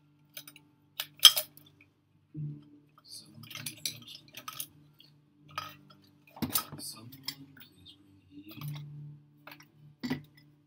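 Small tools and objects being handled on a work table: a run of sharp clicks, knocks and light scrapes. The sharpest click comes about a second in, with another in the middle and one near the end.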